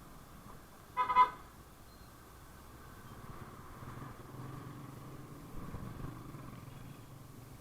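A vehicle horn honks twice in quick succession about a second in, over low road noise. Afterwards a vehicle engine hum swells and fades.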